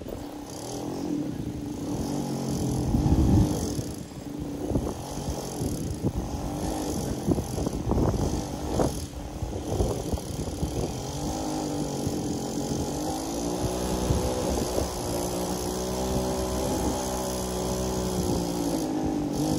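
Mini bike's small whipper-snipper engine running and revving up and down repeatedly, loudest about three seconds in. The revs do little to pull the bike along, which the owner puts down to a worn or faulty centrifugal clutch.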